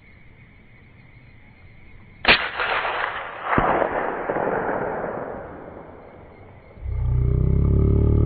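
A single .22-250 Remington rifle shot about two seconds in, followed by a long rolling echo with a second sharp crack about a second later. Near the end a loud low rumbling sound starts and holds.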